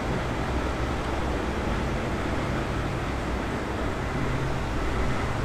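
Steady rushing background noise with a low rumble, even throughout.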